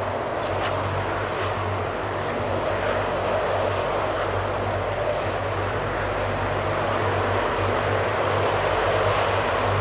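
Transall C-160D's twin Rolls-Royce Tyne turboprop engines and propellers running as the aircraft rolls along the runway: a steady, dense drone with a low hum underneath, growing a little louder toward the end.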